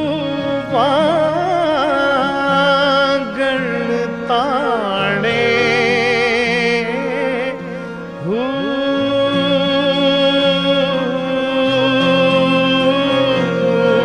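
Male vocalist singing a Punjabi Sufi kalam in qawwali style, with ornamented melismatic runs and long held notes with vibrato, over sustained harmonium chords.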